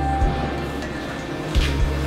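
Background music with a steady low bass line and a few drum hits.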